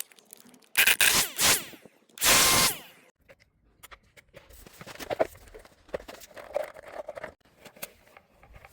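Cordless 20 V grass trimmer switched on in two short bursts, about a second in and again about two seconds in, its motor spinning up and winding down in between. Quieter scraping and handling clicks follow.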